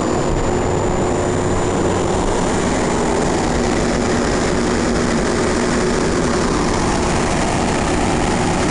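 Kelvinaire air conditioner running: a steady rush of air from its fan with an even hum under it.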